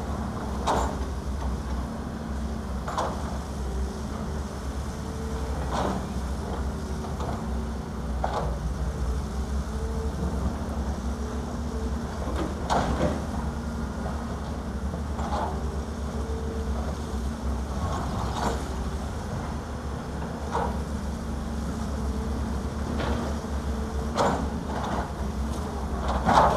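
Diesel engines of a Caterpillar 320 excavator and a dump truck running steadily with a low drone, with a short clank every two to three seconds.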